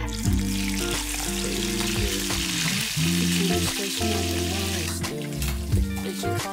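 Marinated Indian mackerel (ikan kembung) sizzling as it fries in hot oil in a frying pan, the sizzle thinning about five seconds in. Background music plays throughout.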